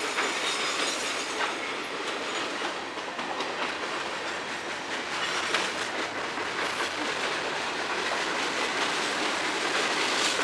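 Mixed freight train of boxcars and tank cars rolling past close by: a steady rumble and rattle of steel wheels on the rails, with scattered sharp clacks.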